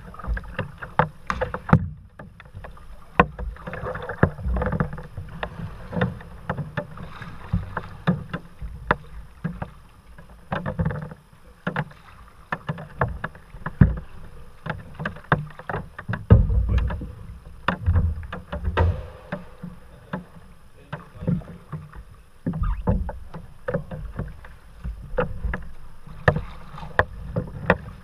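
Sea water slapping and sloshing against a kayak's hull and paddle in a narrow sea cave: a steady run of irregular sharp splashes and clicks over a low surging rumble that swells several times.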